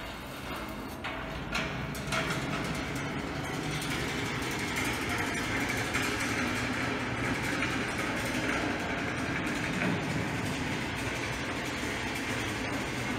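Metal ball rolling along a metal wire-rail marble run: a couple of clicks about a second in, then a steady metallic rolling sound on the rails.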